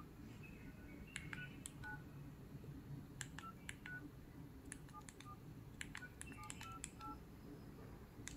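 Keypad of the ECG-942 SIM-card cordless handset, with about ten quick key presses at an uneven pace, each a faint click and a short DTMF beep, as a phone number is dialed.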